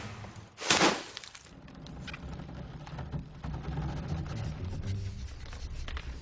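Cartoon sound effects: a sharp snap about a second in, like a vine or wood breaking, followed by a low rumble that slowly grows louder.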